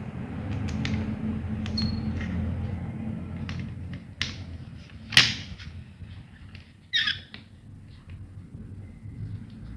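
Handling noises from assembling a small fire-alarm kit: scattered clicks and knocks of parts and screws being fastened, the sharpest knock about five seconds in and a rattling clack about seven seconds in, over a low rumble that drops away after about four seconds.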